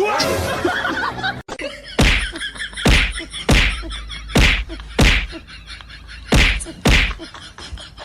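A series of about eight sharp slaps or whacks, unevenly spaced, each loud and short, following a second of noisy clatter.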